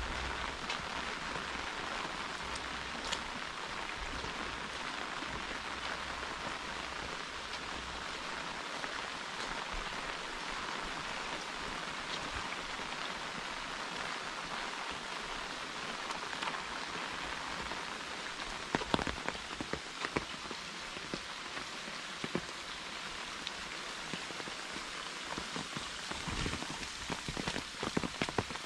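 Heavy rain falling steadily, a dense even hiss, heard from under an umbrella. In the last third, sharper, louder taps of single heavy drops come through more and more often.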